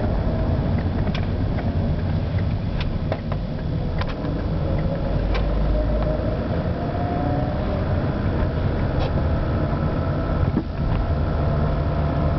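Peugeot 307 running with a steady low drone, over which short sharp clicks or knocks come at irregular intervals, about eight of them; these are the noise the owner is complaining about.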